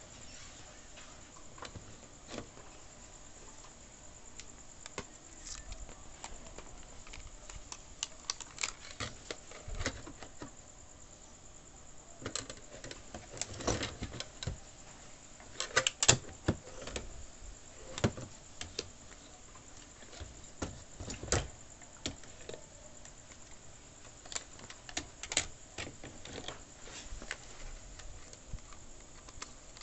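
Irregular clicks and taps of hands handling a digital multimeter, its test probes and a TV circuit board, over a faint steady hiss. The clicks come singly and in small clusters, loudest about halfway through.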